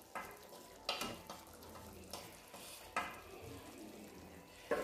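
Oil and tomato masala frying at a low sizzle in a metal kadhai, with a few brief scrapes and clinks of a spoon and spatula.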